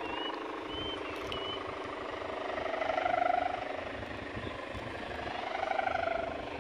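Droning hum of kite hummers (sendaren) aloft, swelling and fading about every three seconds as the wind works the kites. A few short high chirps sound over it in the first second and a half.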